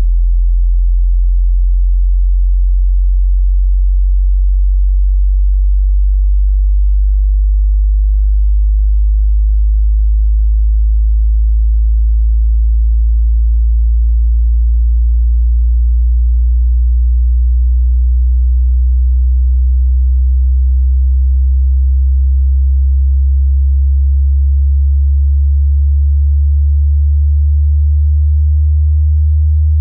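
Loud pure sine tone in the deep bass, gliding slowly and steadily upward in pitch: a hearing-test frequency sweep.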